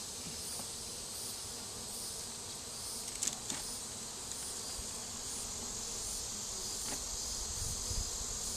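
Honey bees buzzing steadily around an opened hive, with a couple of light knocks a little past the middle.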